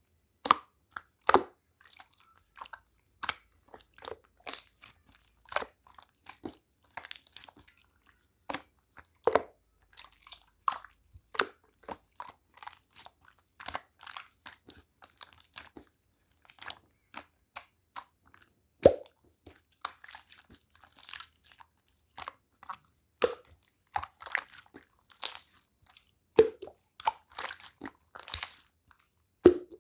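Clear slime being worked by hand: a steady stream of irregular sticky clicks and small pops, with a few louder pops every few seconds.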